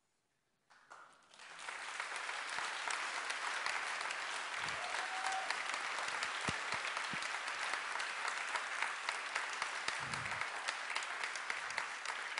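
Audience applauding at the end of a talk. It starts about a second in and holds steady.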